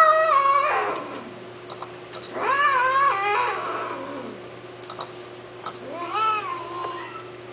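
Domestic cat meowing: three long, drawn-out meows, the middle one the longest and trailing off downward.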